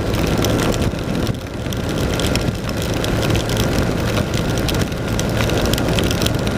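BMW R1200 RT-P motorcycle's boxer twin running steadily at riding speed in heavy rain. Its note sits under a constant rush of wind and wet-road noise, with many small clicks of rain striking.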